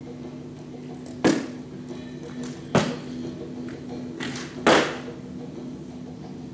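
Three sharp thuds of plastic water bottles landing on a stage floor, about a second and a half to two seconds apart; the third is broader, with a short tail. Background music with a steady low drone underneath.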